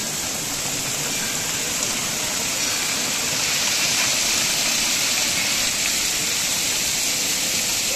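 Water pouring steadily from a long row of temple water spouts, a continuous splashing rush that grows a little louder over the first few seconds and then holds.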